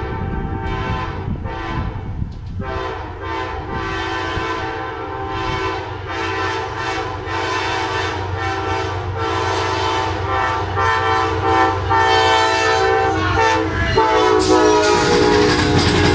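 Amtrak passenger locomotive's chord horn sounding a long series of short blasts over the low rumble of the train, getting louder as it approaches. About 14 seconds in the horn is louder still, joined by the noise of the train passing close by.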